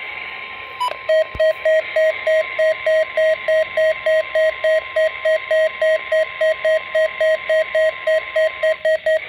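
Weather radio receiver's alert beeper sounding short, evenly spaced beeps about three times a second, starting about a second in, as it picks up a NOAA Weather Radio Required Weekly Test. Under the beeps are the hiss of the radio broadcast and a faint steady tone that stops near the end.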